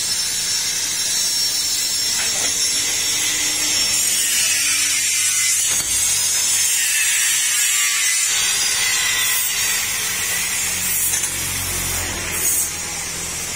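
Handheld power tool working steel: a steady, high-pitched grinding hiss with a thin motor whine in it.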